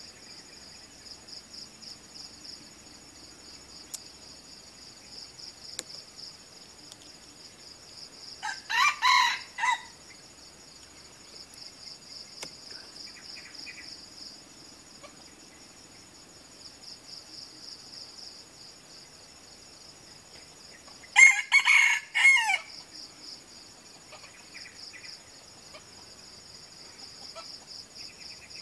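Red junglefowl crowing twice, a short crow about nine seconds in and another about twenty-one seconds in, over a steady high insect drone.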